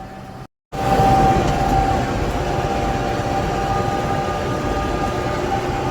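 John Deere 6420 tractor and round baler running in the hayfield: a steady mechanical din with a constant high whine. The sound drops out for a moment about half a second in, then comes back louder and holds steady.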